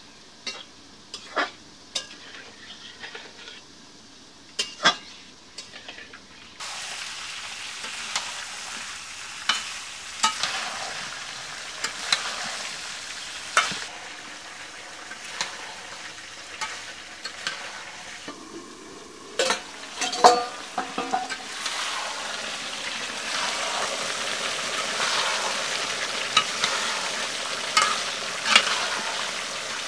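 Chicken and potato curry sizzling in a steel wok while a metal spatula scrapes and clinks against the pan. The first few seconds hold only the spatula's clicks and scrapes; after that a steady sizzle runs under them.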